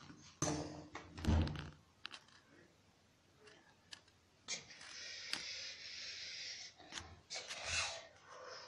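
A few knocks and a low thud about a second in, then a soft steady hiss for a couple of seconds and a few lighter knocks near the end.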